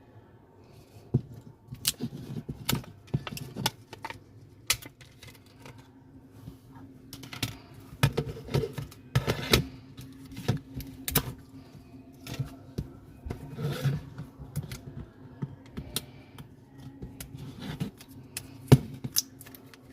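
Irregular sharp clicks and taps of small repair tools working on a smartphone, some louder knocks among them, over a faint steady hum.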